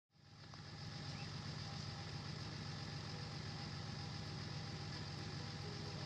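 Car engine idling steadily, fading in over the first second, with a steady high hiss above it.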